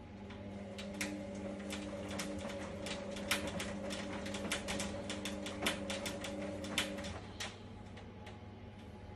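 A 2014 Indesit washer-dryer's motor running in a steady hum, with many irregular sharp clicks over it. The hum stops about seven seconds in, followed by one last click.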